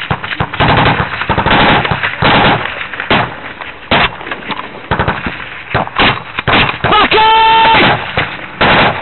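Bursts of close automatic gunfire in a firefight, loud rapid runs of shots. About seven seconds in a man gives one long, loud shout over it.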